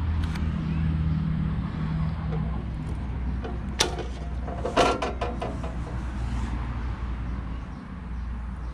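A steady low rumble with two sharp knocks, about four and five seconds in, as a hand handles the steel base of a Bosch GCO 220 cut-off machine; the second knock rings briefly like metal.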